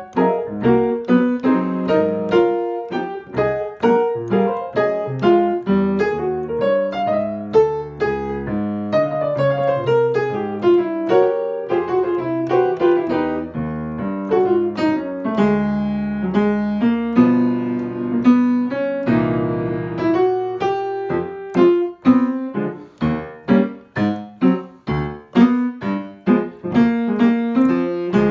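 Solo jazz piano played on a Yamaha acoustic piano: left-hand chords under busy right-hand lines. Past the middle some chords ring longer, and near the end the playing turns to short, separated chords.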